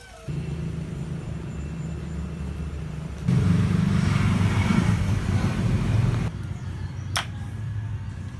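A motor vehicle engine runs steadily with a low hum. It is louder and noisier for about three seconds in the middle, and a single sharp click comes near the end.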